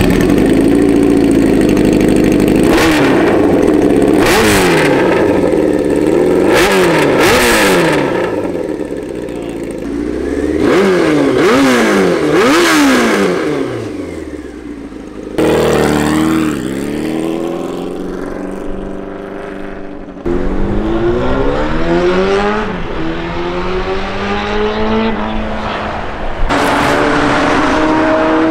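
1993 Honda CBR900RR Fireblade's inline-four engine. For the first half it is blipped up and down in a series of quick sharp revs that fall back toward idle. After a cut, the bike is heard accelerating hard, its pitch climbing in long rising sweeps through the gears.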